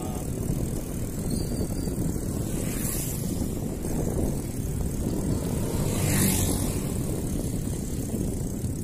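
Steady wind noise and road rumble from travelling along a concrete road, with two brief whooshes about three and six seconds in, the second louder.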